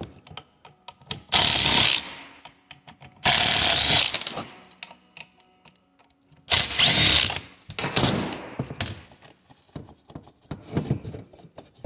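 Handheld power driver run in four short bursts of about a second each, backing out fasteners from a plastic coolant flow control valve housing, with small handling clicks between bursts.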